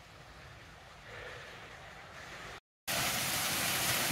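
Faint outdoor hiss, then after a short silent cut about two and a half seconds in, a small waterfall pouring down a rock face: a steady, much louder rush of water.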